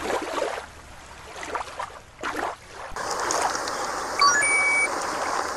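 Uneven splashing from an orca leaping in a show pool, then, after a cut about three seconds in, the steady rush of a shallow stream. About four seconds in, a quick rising electronic chime plays, ending on a held note.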